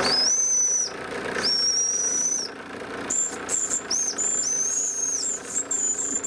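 Small live-steam model locomotive whistles blowing over a steady hiss. There are two long, high blasts, each sliding up slightly as it starts. About three seconds in comes a run of short toots on a higher-pitched second whistle, mixed with another long blast.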